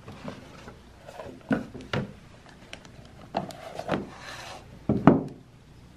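A cardboard watch box handled on a wooden desk: light knocks and rubbing, with a short scrape just after four seconds. Two louder knocks about five seconds in are the loudest sounds.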